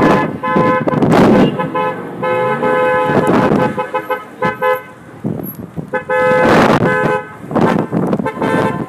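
Car horn honking in about four long blasts, the longest over a second and a half, with several loud rushes of noise in between.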